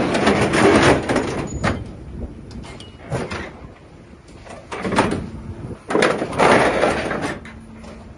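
Scrap metal baling press working: irregular bursts of metal grinding and clanking, with sharp knocks, loudest about a second in and again about five to seven seconds in.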